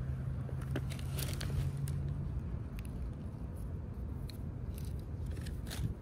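Acorns being picked up and dropped into a plastic bag: scattered small clicks, crunches and rustles. A low steady hum stops about two and a half seconds in.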